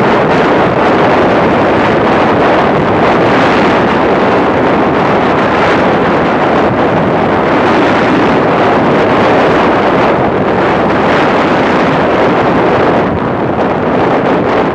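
Steady wind rush buffeting the microphone of a camera on a Yamaha YBR 125 motorcycle moving at dual-carriageway speed. It eases a little near the end.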